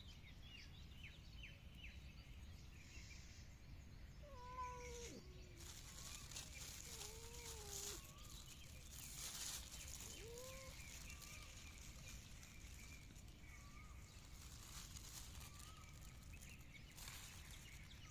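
Cat meowing, faintly: a few drawn-out meows a few seconds apart, the clearest between about four and eleven seconds in, with fainter ones later.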